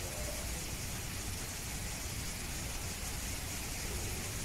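Steady hissing background noise with a low rumble underneath, even throughout, with no distinct knocks or calls.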